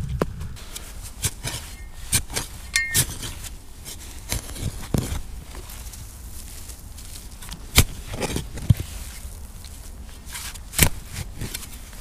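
Digging by hand in forest soil with a small spade: irregular sharp stabs and scrapes of the blade into earth and roots, with soil crackling between the strokes.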